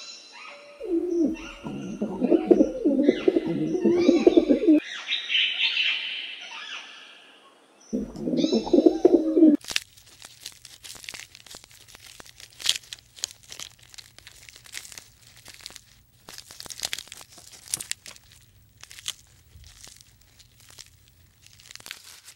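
Common emerald dove cooing in low, throaty phrases, with a few higher chirps between them. After about ten seconds it gives way to quieter scattered clicks and crackles over a faint low hum.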